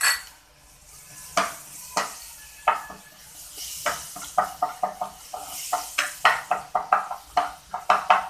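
Garlic paste sizzling in hot oil in a non-stick kadai while a spatula stirs it, scraping the pan in short strokes that come faster in the second half. A knock right at the start.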